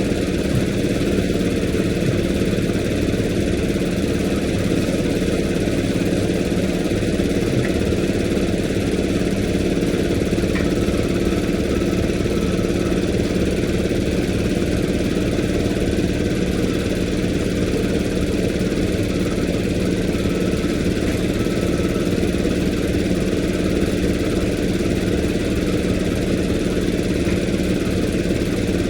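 An engine idling steadily with an even, unchanging drone and a fast low pulse.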